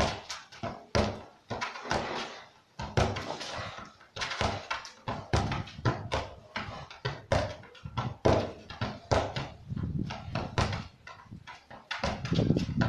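Dull thuds of a football struck with the instep against a wall and rebounding, among a busy run of irregular knocks, several a second.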